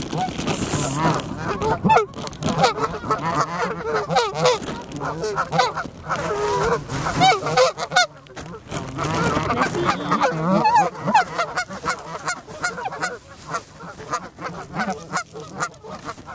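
A group of Canada geese calling right at the microphone: a continuous run of short, overlapping honks and clucks, with scattered clicks among them.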